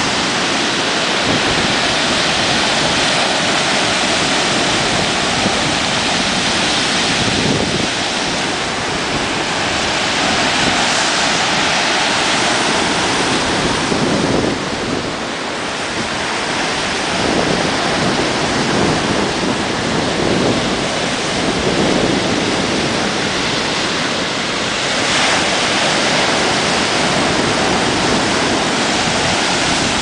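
Loud, continuous sea surf on a pebbly shore: waves break and their foaming wash surges up the beach, swelling every few seconds.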